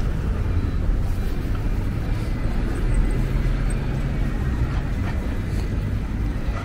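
Steady low rumble of city street noise, with no single sound standing out.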